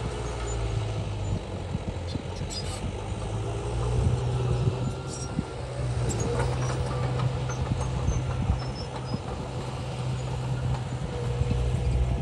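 Heavy diesel engine of earthmoving machinery running steadily with a low hum.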